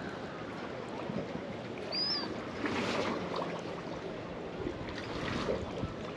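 Water sloshing and lapping against the wharf, with a short high chirp about two seconds in.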